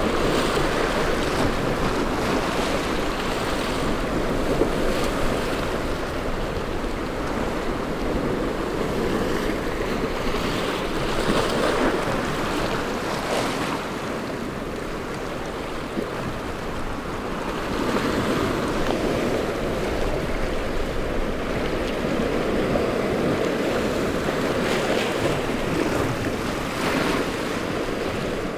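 Ocean waves breaking and surf washing, with wind buffeting the microphone; the rush swells and eases, dipping for a few seconds around the middle.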